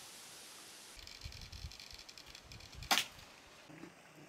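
A single sharp snap about three seconds in, from a homemade wooden crossbow being shot, over a steady high hiss and some low handling rumble.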